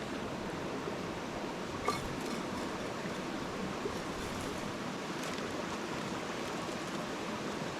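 Steady rush of a flowing creek, with a faint tick about two seconds in.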